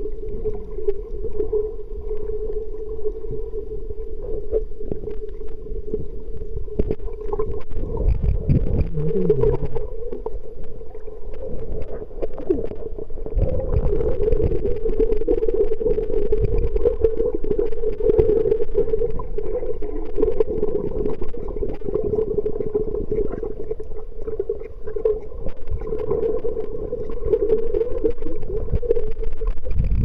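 Underwater ambience picked up by a camera beneath the surface: a steady, wavering mid-pitched hum over low rumbling, with scattered faint clicks and crackles. The hum grows louder a little before halfway and stays strong for much of the rest.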